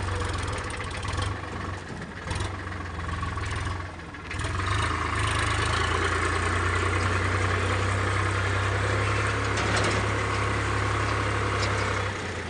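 Farm tractor's diesel engine running as the tractor drives along a dirt track towing a trolley: a steady low drone that eases off briefly, then picks up about four seconds in and runs evenly and louder.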